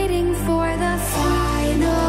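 Background music: an electronic track with sustained synth chords over a deep bass, the chord changing about a second in.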